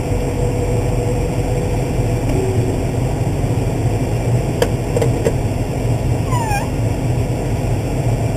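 Case IH 305 Magnum tractor engine running steadily, heard from inside the cab. A few sharp clicks come about halfway through, and a short falling squeak follows soon after.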